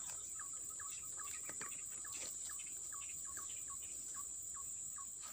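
Insects keep up a steady high-pitched drone while a bird repeats short falling notes, about three a second.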